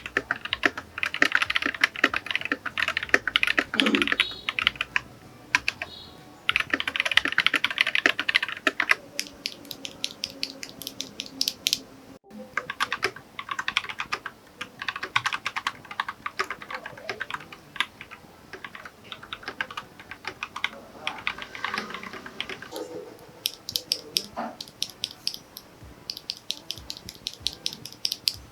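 Typing on an Akko 3068 V2 compact mechanical keyboard with Akko CS switches and PBT keycaps: fast runs of keystrokes broken by slower, sparser stretches.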